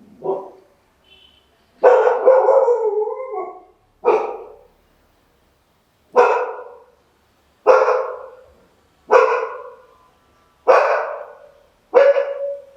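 A dog barking again and again, about one bark every second and a half, with one longer, drawn-out bark about two seconds in.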